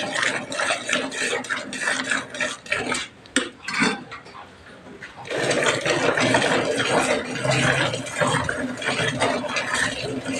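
Cow being hand-milked fast, streams of milk squirting rhythmically into a metal pail at about four squirts a second. The squirting dies down briefly near the middle, then resumes thicker and denser.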